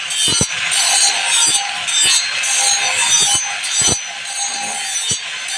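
Hand file rasping across the teeth of a band saw blade in repeated back-and-forth strokes, metal scraping on metal while the blade is being sharpened, with a few light knocks between strokes.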